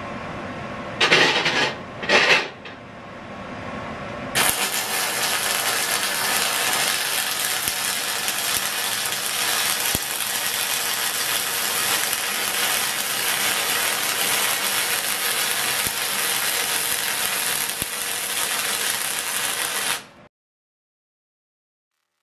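MIG welding arc: two short bursts, then a long continuous crackling hiss of the arc that stops abruptly about twenty seconds in.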